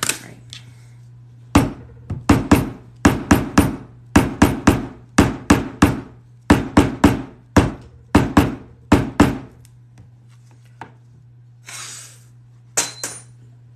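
A leather hole punch struck hard with a mallet about twenty times, in quick runs of two to four blows. It is being driven through two glued layers of leather and is struggling to get through.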